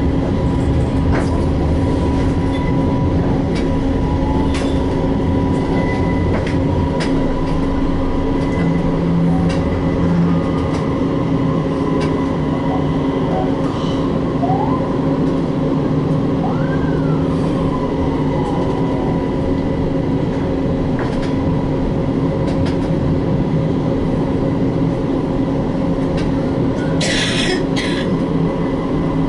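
Istanbul T1 tram heard from inside the car while running: steady rolling noise under a constant motor whine, with scattered short clicks. A short hiss comes near the end.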